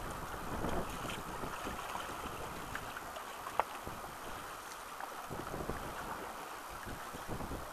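River water rushing and slapping around a canoe moving through choppy current, with one sharp click about three and a half seconds in.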